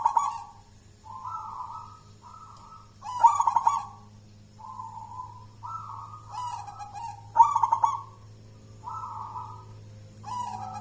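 Zebra dove (perkutut) cooing: a run of soft coos at one pitch, broken three times by louder, rapidly stuttering notes, at the start, about three seconds in, and about seven seconds in.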